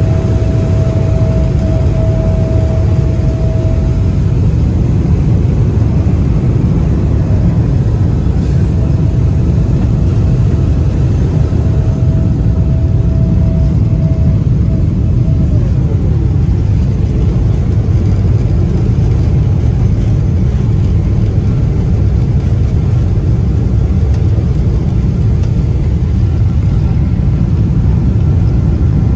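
Airliner cabin noise while climbing through cloud: a steady, loud low rumble of jet engines and rushing air. A thin steady whine comes and goes over it, then drops in pitch and fades a little past halfway through.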